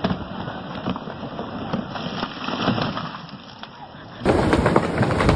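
A falling tree's wood cracking and its branches snapping in a crackling run of sharp snaps, much louder and denser from about four seconds in.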